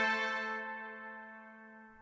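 Background music ending on a held note that fades out steadily to nothing.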